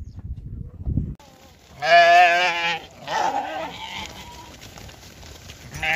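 A goat bleating: one loud, wavering bleat about two seconds in and a fainter call just after, following a low rumbling noise in the first second.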